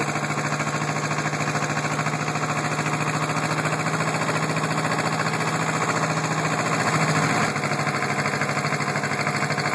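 Small tractor's engine running steadily as the tractor drives along, heard close up from the driver's seat, with a fast even chug. It briefly gets louder about seven seconds in, then settles back.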